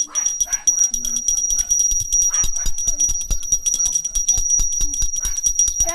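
Hand-held puja bell rung rapidly and continuously: a steady high ringing tone with fast, closely spaced clapper strikes.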